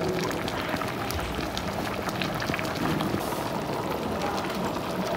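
Soft-shell turtle and chicken stew boiling in a pot set into the table: a steady bubbling hiss with many small pops.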